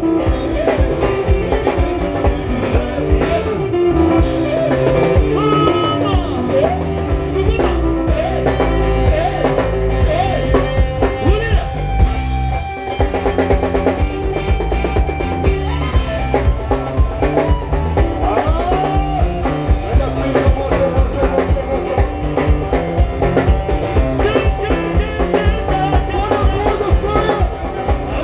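Live band playing upbeat gospel dance music over a PA: a drum kit and bass keep a steady beat while male singers sing into microphones.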